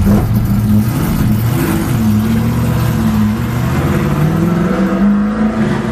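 Stock car V8 engines running in pit lane, their pitch rising and falling as the car ahead pulls away.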